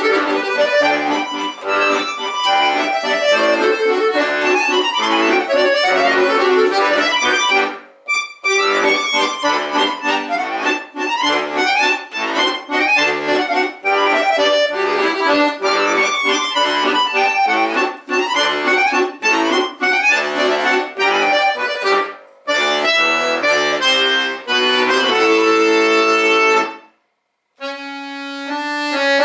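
Solo accordion playing fast runs of notes. The playing breaks off briefly about eight seconds in, then stops for about a second near the end before resuming with held chords.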